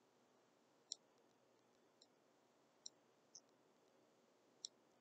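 Faint, sharp clicks of a stylus tapping on a tablet screen during handwriting, five at irregular intervals, over near-silent room tone.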